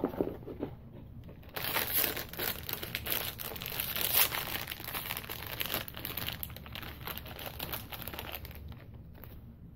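Crinkling and tearing of the foil bag round a small vinyl blind-box figure as it is opened by hand. The crackling starts about one and a half seconds in and dies away near the end.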